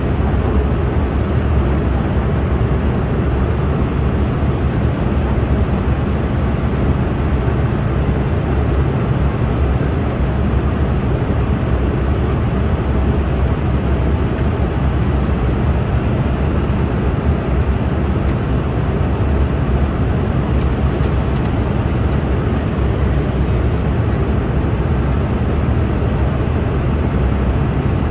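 Steady in-flight cabin noise of an Embraer 195-E2 heard from a window seat beside the wing: its Pratt & Whitney PW1900G geared turbofan and the airflow over the fuselage make a constant, deep drone.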